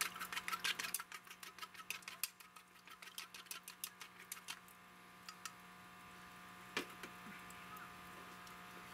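Chopsticks beating a raw egg in a stainless steel cup: rapid clicking of the sticks against the metal, about six clicks a second, thinning out and stopping about four or five seconds in. A single knock follows near seven seconds, over a low steady hum.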